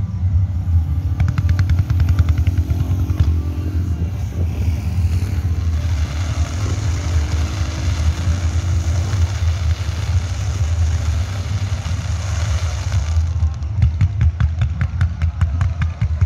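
Fireworks display: a continuous barrage of booming shells with runs of rapid crackling, one about a second in and another lasting a few seconds near the end.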